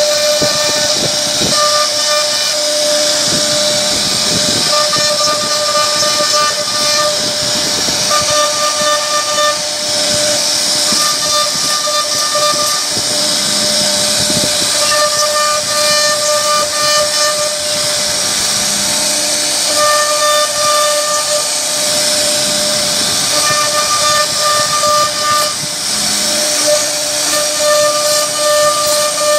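CNC router spindle running at high speed with a steady whine, a higher tone that comes and goes every second or two, over a strong hiss as the bit carves relief into a wooden door panel.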